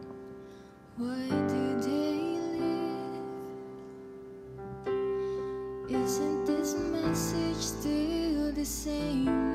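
A woman singing solo into a microphone over piano accompaniment. The piano plays alone at first; her voice comes in about a second in, breaks off briefly mid-way, and resumes.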